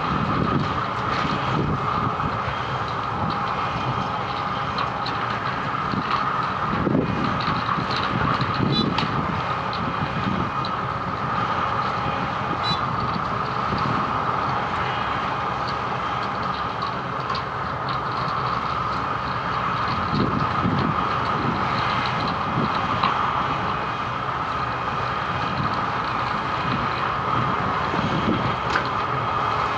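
Wirtgen W210i cold milling machine at work, its engine and milling drum running steadily, with irregular deeper surges.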